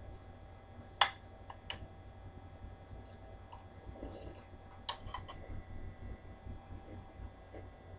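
Spoon clinking against a cereal bowl while eating: one sharp clink about a second in, a lighter one just after, and a quick run of clinks around five seconds in, with faint chewing between.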